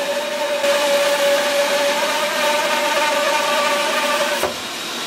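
Craftsman 14-inch bandsaw running with a steady motor hum while its blade rips a hickory log lengthwise down the middle. About four and a half seconds in the cutting noise drops and the saw keeps running.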